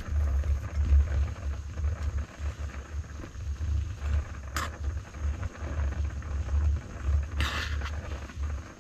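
Small gas canister stove burning under a titanium pot of boiling instant noodles, heard as a low, unsteady rumble. A utensil scrapes against the pot twice, about four and a half seconds in and again near the end.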